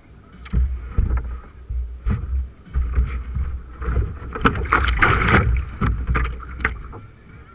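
Irregular knocks and bumps on the hull of a K1 sprint kayak and water splashing as the paddler climbs in from a wooden dock and pushes off, busiest and loudest about five seconds in. Wind rumbles on the microphone throughout.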